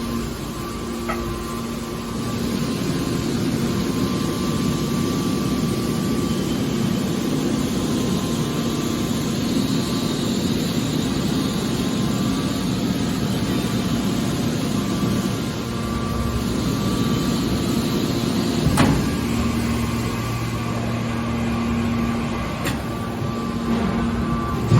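Aluminium can baler press machine running, a steady machine hum, with one sharp knock about three-quarters of the way through.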